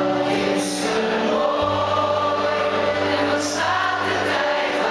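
Live pop ballad: a male lead vocal over band accompaniment with sustained chords and a bass line that drops out briefly twice.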